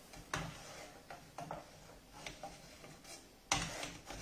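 Scattered light knocks and clinks of a kitchen utensil against a pasta pot, about six in all, the loudest about three and a half seconds in, while cooked spaghetti is drained and lifted out.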